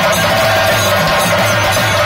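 Chenda drums beaten rapidly with sticks in a dense, loud, continuous roll, with a handheld wind pipe holding a steady high note over them.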